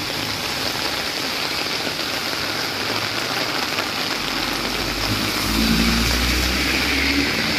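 Heavy rain falling on a flooded street, a steady hiss. About halfway through, a car drives past through the standing water: a low engine hum and tyre splash, loudest between five and seven seconds in.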